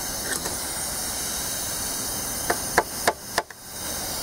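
Hammer blows on a steel drift set against a rust-seized piston in a corroded Chevy 305 small-block, four sharp ringing metal strikes about three a second starting halfway through. A steady hiss runs underneath.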